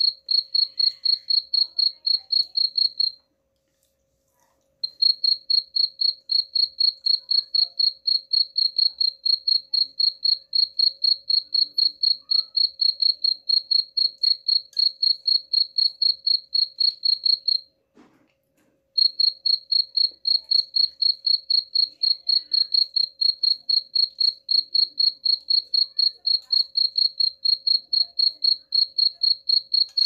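Cricket chirping in a fast, even train of high-pitched pulses. It falls silent twice for a second or two: about three seconds in, and again a little past halfway.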